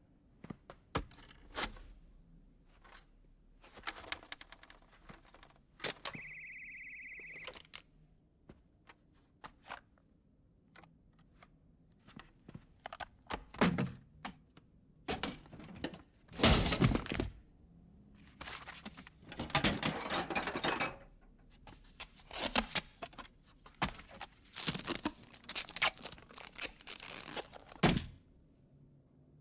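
A string of animated-film sound effects with no dialogue or music. It starts with scattered knocks, clicks and thunks. About six seconds in, a steady tone of several pitches lasts about a second and a half. The second half brings louder, denser clattering, rustling and crashing bursts.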